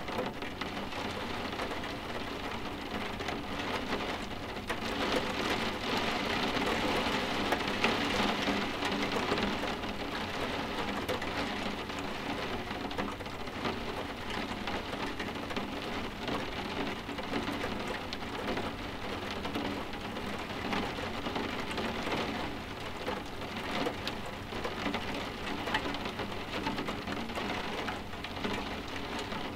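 Steady rain softly tapping on window glass, swelling a little louder a few seconds in.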